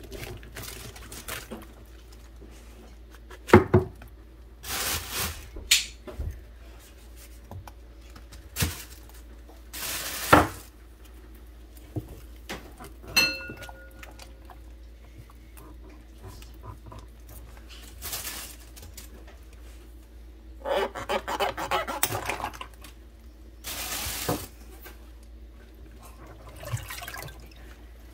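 Hands washing chicken of the woods mushroom pieces in a basin of water in a kitchen sink: intermittent splashing and sloshing, with sharp knocks and clatter against the basin. A short ringing ping sounds about 13 seconds in.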